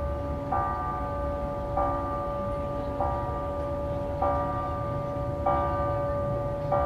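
Church bells ringing in full peal. One bell strikes about every second and a quarter, six strikes here, over the steady hum of other bells still ringing.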